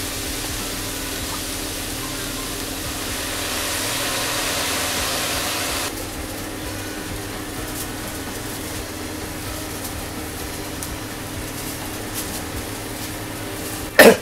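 Steady hiss with a low hum from a kitchen, where a pot is heating on a gas stove. The hiss is louder for the first few seconds and then drops suddenly. A single sharp knock comes near the end.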